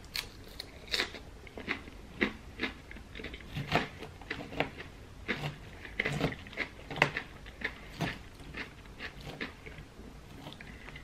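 Close-up chewing and biting of a mouthful of crunchy salad, with irregular short crunches, about two or three a second.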